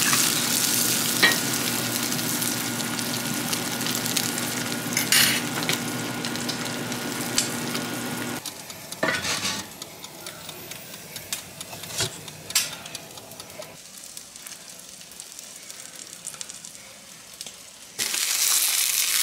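Food sizzling and frying in a pan. The sizzle drops abruptly to a much quieter level about eight seconds in, with a few sharp clicks, and comes back loud near the end.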